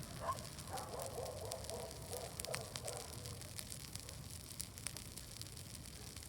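Bonfire crackling faintly with scattered sharp pops, while dogs bark in the distance through the first three seconds.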